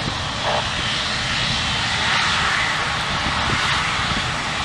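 Emirates Boeing 777's twin jet engines running at taxi power as the airliner rolls and turns: a steady jet rush that swells slightly about two seconds in.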